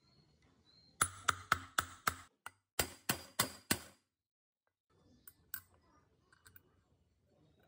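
About ten sharp, ringing metal strikes, roughly three a second, as the hub of a ring air blower's bladed impeller is hammered down onto its motor shaft. A few faint small clicks follow near the end.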